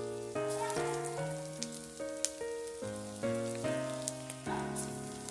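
Gentle background music, a melody of notes changing about twice a second, over hot oil sizzling and crackling in a kadai as battered chicken pakoras go in to deep-fry.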